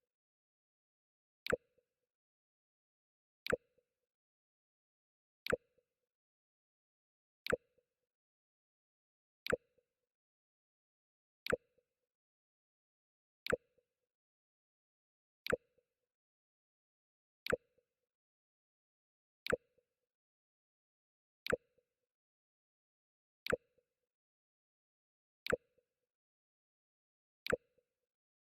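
The Mac OS X 'Jump' sound effect: a very short pop, repeated every two seconds with silence between.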